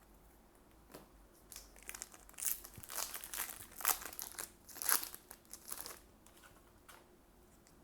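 Foil wrapper of a trading-card booster pack crinkling as it is handled and opened, in a run of rustles lasting a few seconds, loudest near the end.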